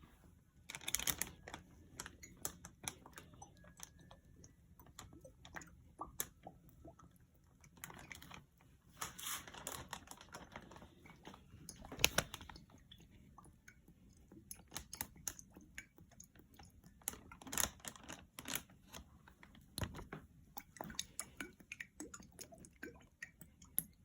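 Quiet handling noise of plastic bags and bottles while hot sauce and seasonings go into bagged chicken wings: irregular clicks and crinkles, with a few short louder rustles.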